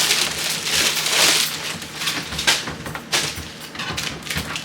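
Frozen food and ice being handled and pulled out of a freezer: crackling, crunching packaging and ice, with a few sharp knocks about two and a half and three seconds in.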